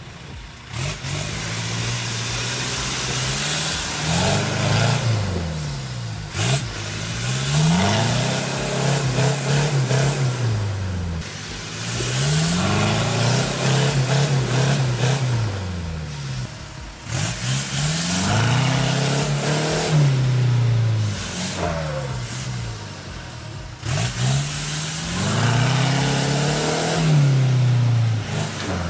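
Off-road 4x4 pickup's engine revving up and easing off again and again, about seven times, as it churns its tyres through deep mud, with a steady hiss of spinning tyres and flung mud.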